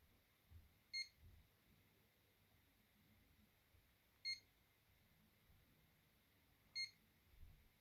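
Alcatel BC2 mobile phone's keypad beeping as its buttons are pressed to move through the menus: three short, high beeps a few seconds apart, with faint low knocks of the phone being handled.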